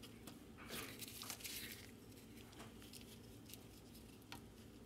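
Faint handling noise as gloved hands swap lab-scope test leads back-probed into a wheel speed sensor's wires: rustling about a second in and a few light clicks.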